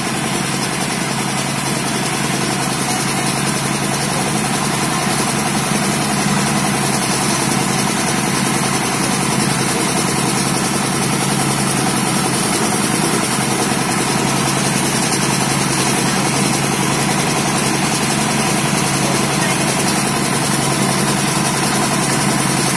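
Engine-driven rice thresher running steadily under load, its motor and spinning drum making a loud, unbroken mechanical din as sheaves of rice stalks are fed in.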